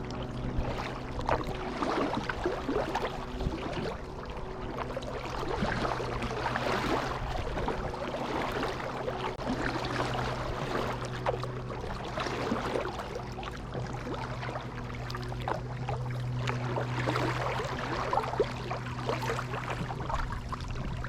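Kayak paddling on a pond: water splashing and dripping off the paddle blades, with a steady low hum underneath.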